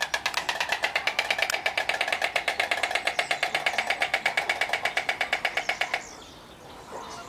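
White storks clattering their bills: a rapid, even wooden rattle of more than ten strokes a second that stops abruptly about six seconds in.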